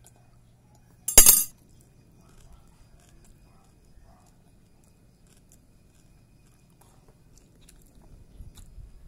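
A metal spoon let fall into a bowl: one sharp clink with a short ring, about a second in.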